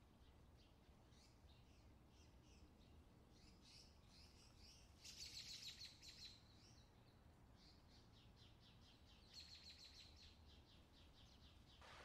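Small songbirds chirping faintly, with two louder spells of rapid trilling, about five seconds in and again near ten seconds.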